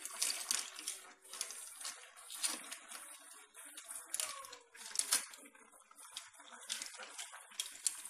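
Mussel shells in a sour cream sauce clattering and scraping against each other and the frying pan as they are stirred with a wooden spatula, in irregular strokes several times a second.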